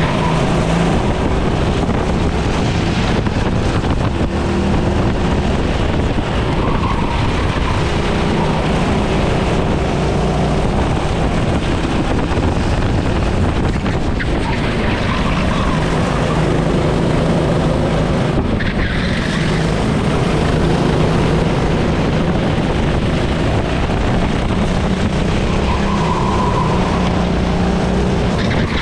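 Racing kart engine running hard, its pitch rising and falling again and again as the throttle opens and closes.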